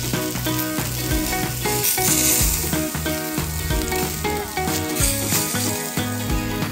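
Frog legs sizzling on a hot charcoal grill grate, the hiss swelling about two seconds in and again near five seconds, over background music.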